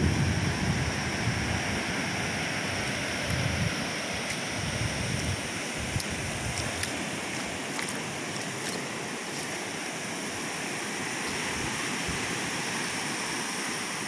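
Ocean surf breaking on an offshore reef, a steady wash of noise. Wind buffets the microphone in gusts during the first few seconds.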